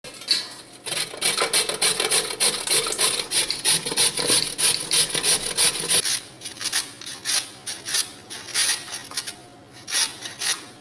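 Carrots being grated on a stainless steel box grater: quick, repeated strokes of carrot scraping across the metal, thinning out near the end.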